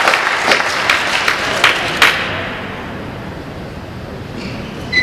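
Applause from spectators in a large hall, many separate claps that die away about two seconds in, leaving quieter hall noise.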